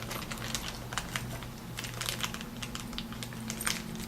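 Plastic hardware bag being handled and opened, crinkling with many irregular light clicks as the small L brackets inside are moved about.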